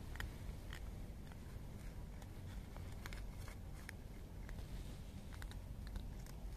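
Two cats crunching dry kibble: irregular, crisp crunches and clicks over a low, steady rumble.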